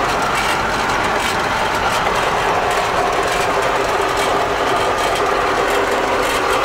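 Fortschritt E303 self-propelled hay mower running steadily, heard from inside its cab: an even engine and machinery drone with a few steady whining tones.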